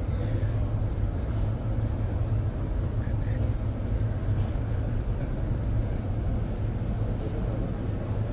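Busy car-show crowd ambience: a steady low rumble with faint, indistinct voices.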